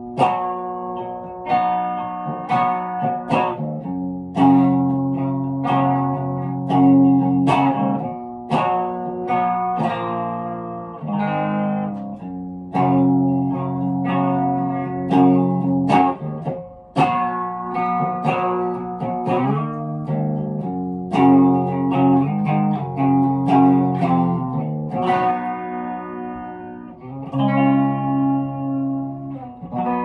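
Electric guitar, a red Stratocaster-style solid-body, playing a melodic instrumental passage: picked notes and chords in steady succession, a new one every half second to a second, each ringing on. The notes are left to ring and fade near the end.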